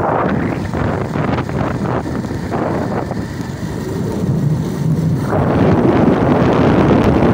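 Wind buffeting the phone's microphone: a steady low rumble that eases a little in the middle and grows louder again about five seconds in.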